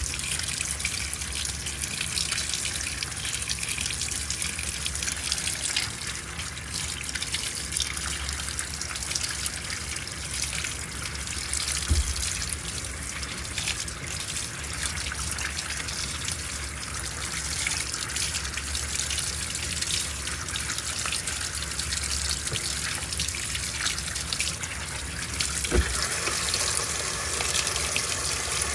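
Water pouring steadily into the tub of an LG Turbodrum top-loading washing machine as it fills at the start of a wash cycle. Two brief low knocks come partway through and near the end.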